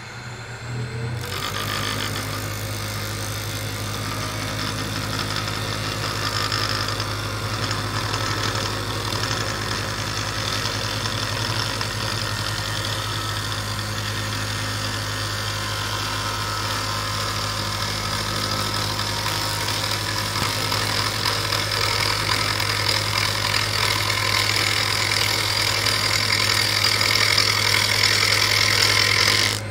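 Wood lathe running with a hand-held turning tool cutting into a spinning magnolia blank: a steady motor hum under the hiss and rasp of the cut, which begins about a second in and grows louder toward the end. These are cuts turning the blank down to size.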